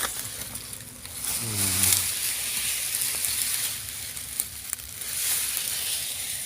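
Crackling and rustling of dry leaves and undergrowth underfoot and pushed aside while searching on foot, in uneven swells with a few sharp snaps; a brief low human murmur about a second and a half in.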